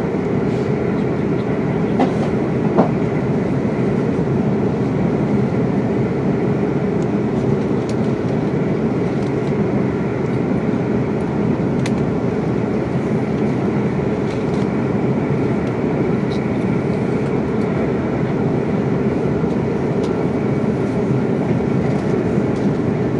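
Steady running noise inside a Class 350 electric multiple unit travelling at speed: the low rumble of wheels rolling on the rails, with a few light clicks from the track.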